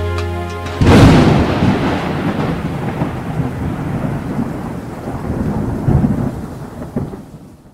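Music ends about a second in and a sudden loud thunderclap follows. Rolling thunder then rumbles in swells over a steady rain-like hiss and slowly fades out.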